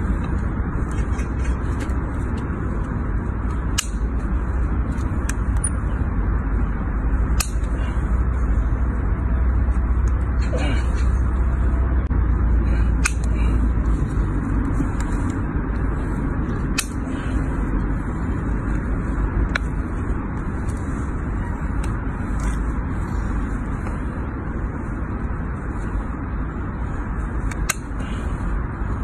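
Hoof knife paring the horn of a hoof in repeated short scraping strokes, about one or two a second, with a few sharp clicks. A steady low rumble lies under it all and is the loudest sound.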